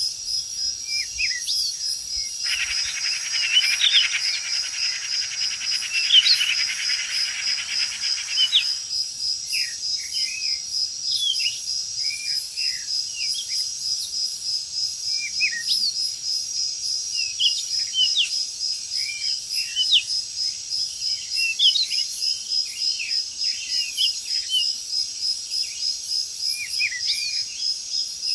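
Tropical forest ambience: a steady, fast-pulsing high insect chorus with many short bird chirps throughout. About two seconds in, a louder buzzing sound comes in and lasts some six seconds.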